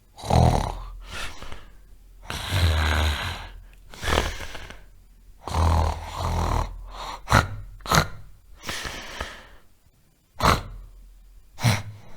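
A person snoring loudly: a string of about nine rough snores at an uneven pace, some drawn out over about a second, others short and snorting.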